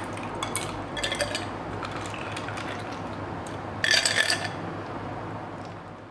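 Watermelon juice with ice being ladled into a glass: liquid pouring and splashing, with ice and the ladle clinking against the glass, the loudest clatter about four seconds in, over a steady low hum. The sound fades out at the end.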